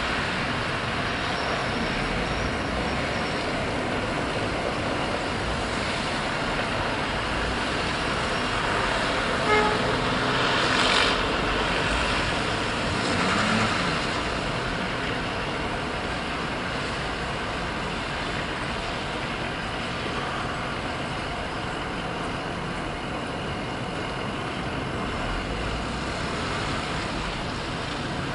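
Steady street traffic noise while a saloon car stuck in packed snow spins its wheels and runs its engine, trying to rock free. A brief horn-like toot about nine and a half seconds in.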